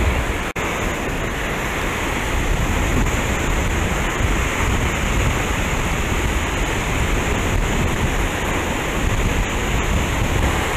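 Gulf of Mexico surf washing steadily up the beach, with wind rumbling on the microphone. The sound cuts out for an instant about half a second in.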